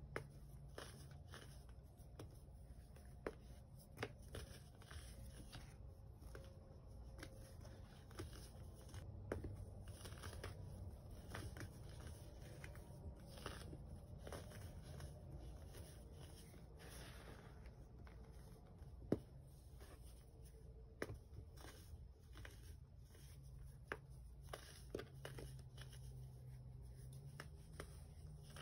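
Pressed chunks of baking soda squeezed and crumbled in the hands over loose powder: faint, soft crunching and crumbling with scattered sharp little cracks as the chunks break apart.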